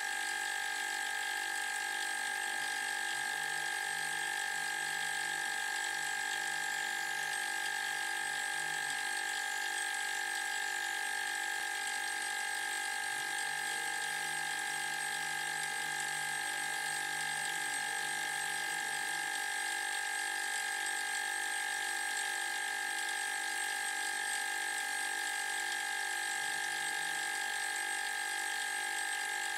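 Refrigerator compressor running steadily with a quiet, even hum and whine, pumping up its air tank close to the 90 psi cut-off.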